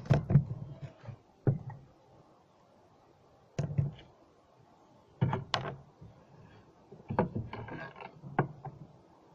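Small bottles, a battery and hand tools being picked up, moved and set down on a plywood board: several short clusters of knocks and clicks.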